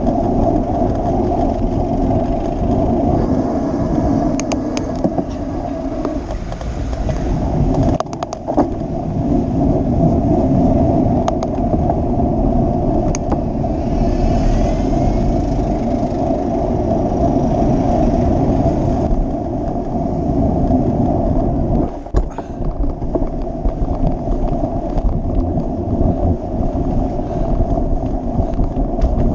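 Steady rush of wind and road noise from riding between lines of slow or stationary cars and a bus, with the engines of the queued traffic alongside. A faint rising whine comes in briefly about fourteen seconds in.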